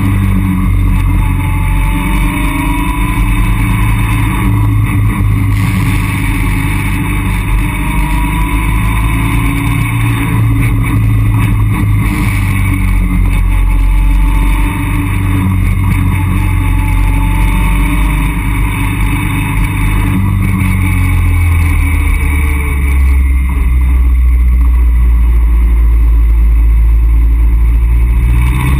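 Caterham Roadsport 175's four-cylinder engine pulling the open car along a winding road, its note rising and falling with the throttle. Heard from the open cockpit, with steady road and wind rush over it.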